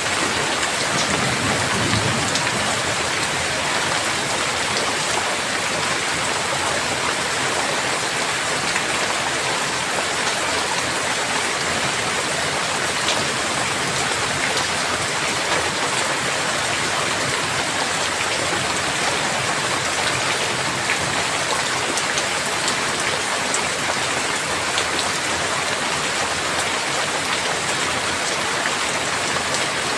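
Steady heavy rain falling: a dense, even hiss of rain with scattered sharper drop ticks.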